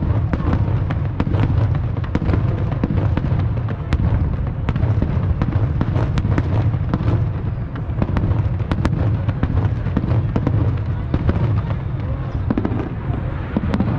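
Fireworks display: a dense, unbroken barrage of bangs and crackles over a steady low rumble.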